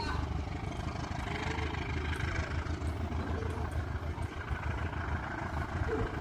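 Diesel commuter train's engine running as a low, steady rumble in the distance as the train pulls away from the station.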